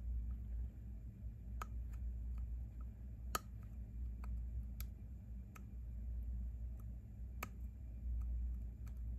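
Scattered irregular small clicks of a tool picking leftover resin support bits out of a 3D-printed figure's eye socket, the sharpest a little over three seconds in, over a steady low hum.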